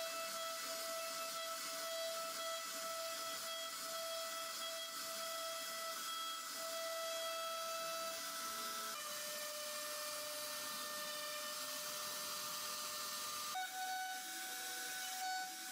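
CNC router spindle whining steadily while its bit cuts into a wooden panel, over a high hiss of cutting. The whine's pitch steps down a little about halfway through and up again near the end.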